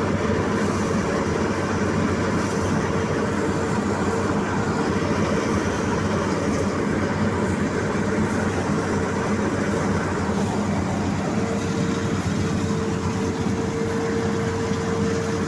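New Holland combine harvester running steadily, a continuous machinery drone. A steady whine sits over it at the start and comes back about two-thirds of the way through.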